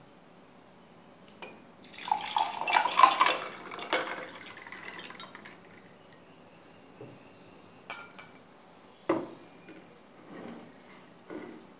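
Sabja seed lemon water poured from a glass jug into a drinking glass, splashing for about three seconds. A few short knocks of glassware set down on the table follow.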